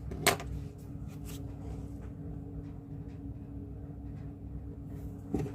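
Quiet room tone: a low, steady hum with a few faint clicks and a soft knock near the end.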